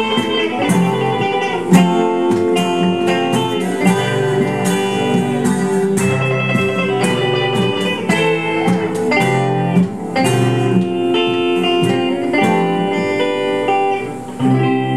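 Live guitar music: strummed guitar chords with a picked lead line over them, steady and without singing.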